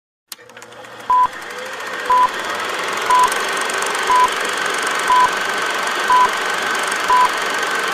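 Old-film countdown sound effect: a short, high, pure beep once a second, seven in all, over steady hiss and crackle that swells up in the first two seconds.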